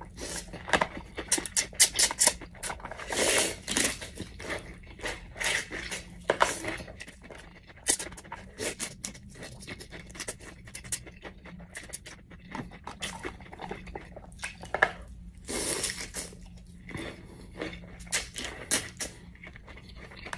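Close-up mukbang eating sounds: spicy ramen noodles slurped and chewed in irregular bursts, with sharp clicks of a fork against the plastic tub.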